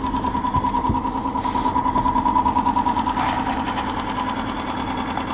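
Small outboard motor on a fishing boat running steadily at low trolling speed, with an even, fast pulse.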